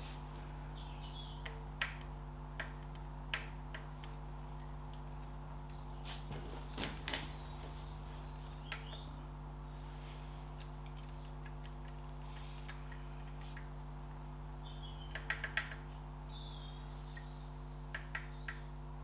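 Scattered light clicks and metal taps as a distributor is twisted and pressed by hand into its housing on a Ferguson TED20 engine, the part catching on the drive gear and not seating. A steady electrical hum runs underneath, with a few faint bird chirps.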